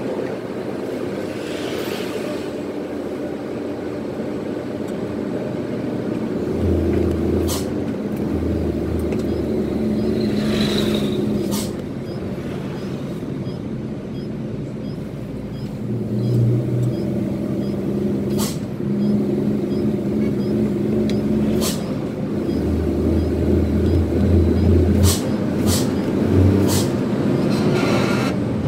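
Twin-turbo diesel truck engine running under way, heard inside the cab, its note rising and falling with the throttle. Several brief, sharp hiss-like sounds cut in now and then, about seven of them.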